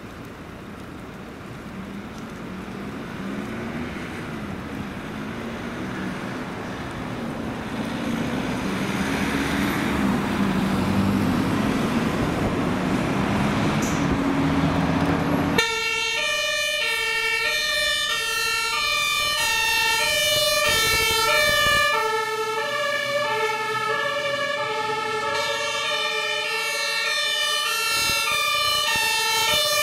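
A fire engine's diesel motor runs and grows louder as the truck pulls out. About halfway through, its two-tone siren (German Martinshorn) cuts in suddenly and sounds loudly, switching back and forth between a high and a low tone.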